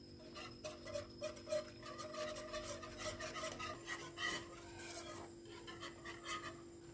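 Wire whisk scraping and rubbing around a pan in rapid repeated strokes, stirring a thin mixture of milk, cocoa and cornstarch water.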